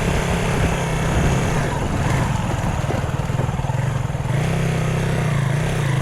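Honda Tornado 250 single-cylinder four-stroke engine running under way as the motorcycle is ridden, a steady note that dips and rises slightly about five seconds in.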